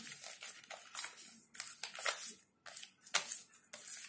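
A sheet of paper being folded and creased by hand: a series of short, irregular rustles and sweeps as the folds are pressed flat.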